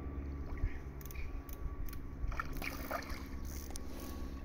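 A hooked carp splashing and thrashing at the surface close to the bank while being played, several short splashes in the second half, over a steady low hum.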